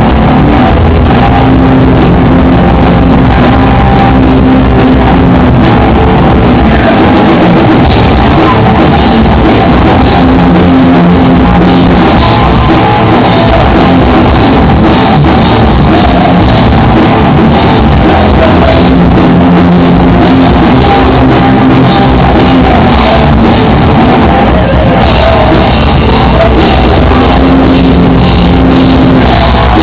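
A guitar and drum kit playing a rock song together, loud and unbroken, on a crude, overloaded recording.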